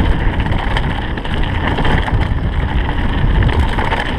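Wind buffeting an action camera's microphone while a mountain bike descends fast on a dirt forest trail, with a steady low rumble from the tyres and frame and scattered small rattles and clicks from the bike.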